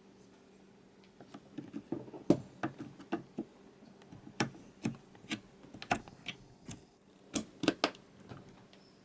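A run of sharp plastic clicks and taps, some in quick pairs, as DDR4 memory sticks are handled and pushed into motherboard slots, their retention latches snapping shut.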